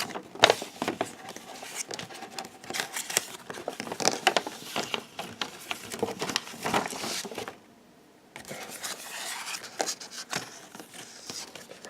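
A foil trading-card booster pack being opened and handled: the wrapper crinkles and tears and the cards rustle, in a busy run of sharp crackles and clicks. There is a short pause about two-thirds of the way through.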